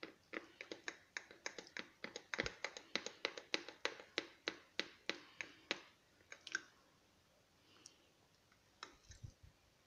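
Small spoon clinking against the side of a small glass bowl while stirring cocoa batter, a quick run of clicks about three or four a second. The clicking stops about six seconds in, leaving only a few faint taps.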